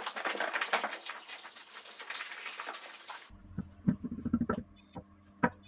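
Dogs eating off plates: a dense crackle of small wet chewing and licking clicks. About three seconds in it changes abruptly to a low steady hum with a few sharp taps on a countertop.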